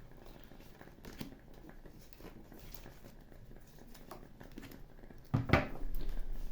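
Oracle cards being shuffled and handled, soft rustling with light clicks. About five seconds in, a louder thud with a low rumble, as of the deck being knocked or set down.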